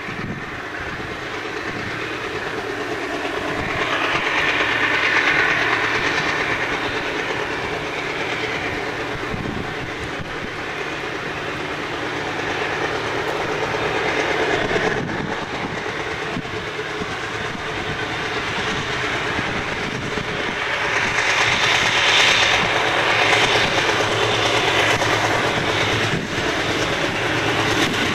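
Ex-Burlington Northern GE U30C and C30-7 diesel locomotives, with their V16 engines, working an ore train as it approaches: a steady low engine drone under wheel-and-rail noise that grows louder, swelling twice into a louder hiss.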